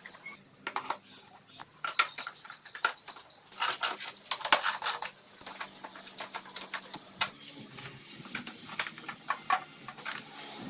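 Irregular clinks and knocks of metal tools and engine parts being handled, some in quick clusters.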